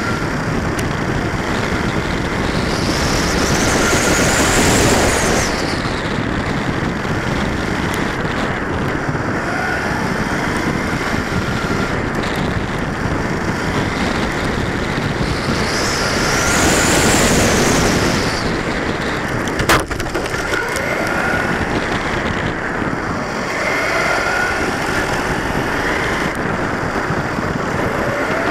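1/10-scale RC short-course truck heard from its own onboard camera as it laps on asphalt: a steady rush of drivetrain, tyre and wind noise. A high motor whine rises and falls twice as it speeds up along the straights, and there is one sharp knock about 20 seconds in.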